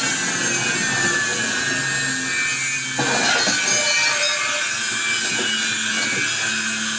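A power tool working metal: a steady high-pitched whine over a grinding, rasping noise. The sound changes abruptly about three seconds in.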